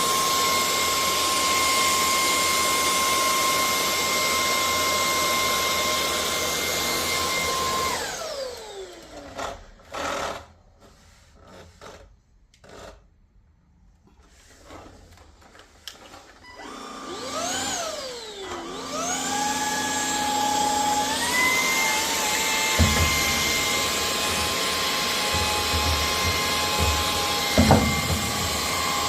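Cordless stick vacuum cleaner's motor running with a steady whine, then switched off about eight seconds in, its pitch falling as it winds down. After several seconds of near quiet with a few clicks, it is switched back on and spins up to a steady whine again, with a few short knocks as it is moved about.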